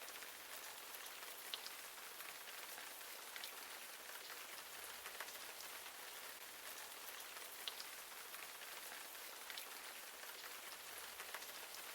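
Faint steady rain: an even hiss with scattered light drop ticks.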